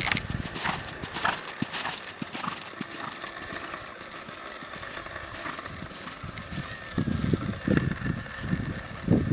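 Hoofbeats of a cantering horse on a sand arena surface, with heavier low thuds from about seven seconds in as it takes off over and lands from a small jump.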